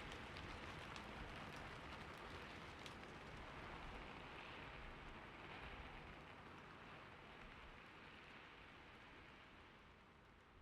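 Faint steady rain, an even hiss with light ticks of drops, slowly fading out to near silence toward the end.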